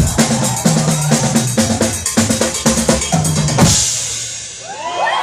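Drums and percussion played in a fast, dense run of hits, with tuned drums sounding low pitched tones. About three and a half seconds in, a final loud hit with a cymbal wash rings and fades, and near the end some rising pitched sounds come in.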